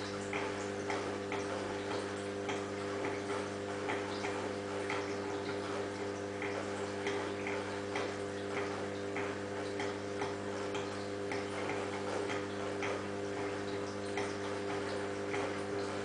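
Steady electrical hum of aquarium equipment, with light, irregular ticks about two a second.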